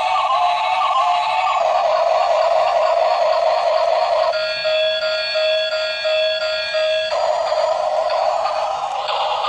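Tinny, buzzy electronic music with a synthetic sing-song tone. A steady electronic note is held for about three seconds in the middle.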